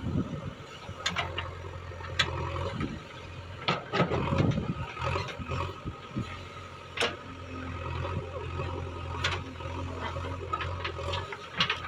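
Diesel engine of a JCB 3DX backhoe loader running steadily, with irregular sharp knocks and clanks from the machine at work, the loudest about four and seven seconds in.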